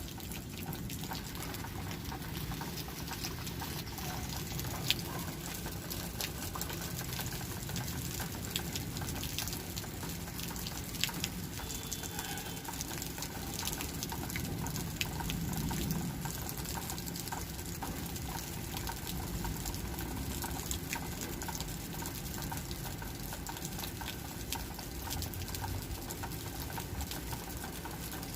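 Rain falling steadily, a constant hiss of water with many small drop ticks scattered through it.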